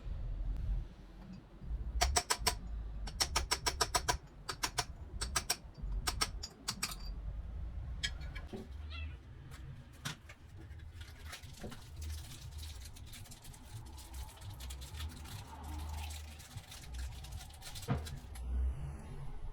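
Sharp clicks and taps of hand tools and metal parts being worked, in quick clusters of several strokes during the first few seconds, then fainter and more scattered over a low rumble.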